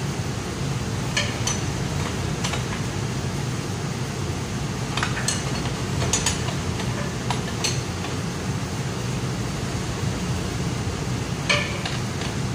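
Steel wrenches clinking now and then against the nuts and bolts of a 4-inch pipe flange as the nuts are turned: a handful of sharp, separate metallic clicks over a steady low hum.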